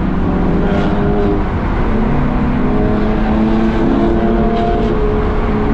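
Car engine and exhaust running loud and steady as the car drives off, the engine pitch shifting up in steps.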